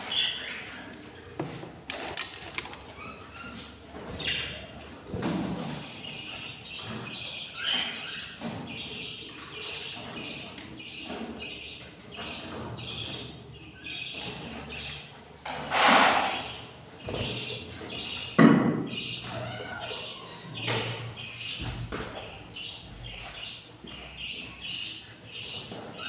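Budgerigars chirping: many short high calls following close on one another, with two louder thumps a little past the middle.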